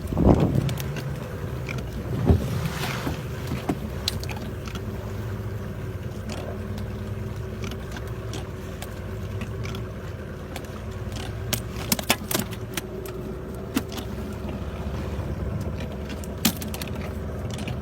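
Small fishing boat's motor running steadily as a low hum, with scattered knocks and clicks from the boat.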